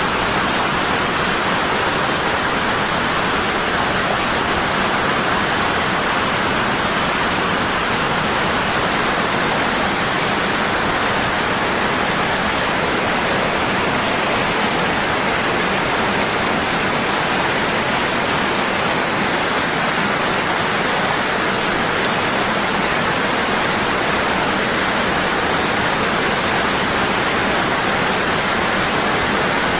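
Waterfall rushing strongly and constantly, a steady even roar of falling water with no breaks.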